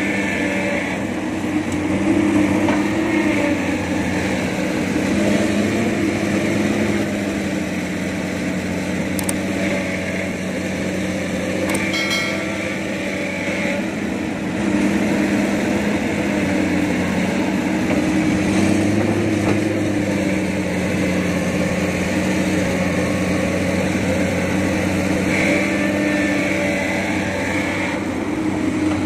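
Hydraulic excavator's diesel engine running steadily under load while digging and loading soil, its pitch dipping and rising as the hydraulics work. A short clank about twelve seconds in.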